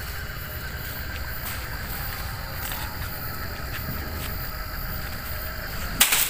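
Night insects, crickets, chirring in a steady high-pitched drone over a low rumble. A short, loud crackle comes near the end.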